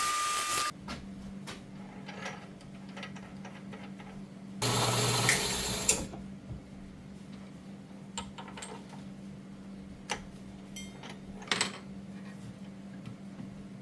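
Machine tool's electric motor running with a steady hum while working a steel hinge pipe, with a louder burst of machining noise about five seconds in and a few sharp clicks after it.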